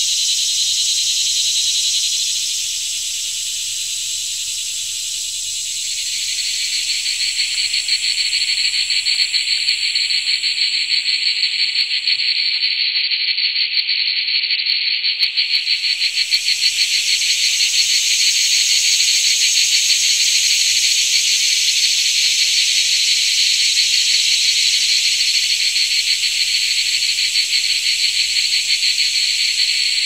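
Chorus of singing insects: a loud, steady high-pitched buzz, joined about six seconds in by a fast pulsing rasp. The highest part drops out for a few seconds midway.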